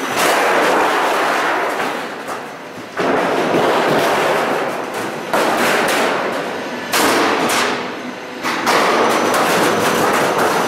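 Metal roof panel roll forming machine running, its steel sheet rattling through the forming rollers: a loud, noisy rush that cuts in abruptly about five times and tails off in between.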